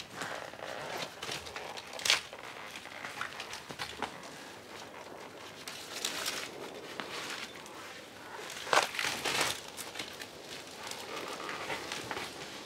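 Rustling, scraping and crackling of a climber moving around a tree trunk among its branches, with sharp knocks about 2 seconds in and near 9 seconds.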